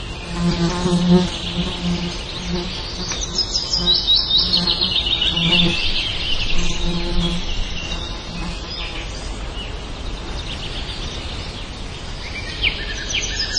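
Buzzing of a flying insect, coming and going in short bursts for the first eight seconds or so, over birds chirping with quick falling notes, busiest around four to six seconds in and again near the end.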